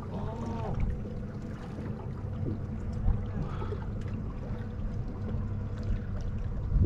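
Boat engine idling with a steady low hum, over wind and water lapping against the hull.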